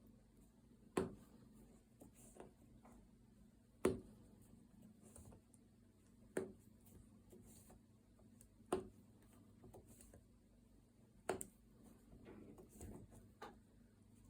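Faint handling of potholder loops being worked off a loom during a bind-off: five light, sharp clicks spaced about two and a half seconds apart, with soft rustling between them.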